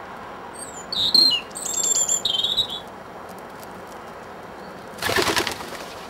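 A small garden bird gives a run of high chirps for about two seconds. Near the end a wood pigeon's wings clatter briefly as it takes off.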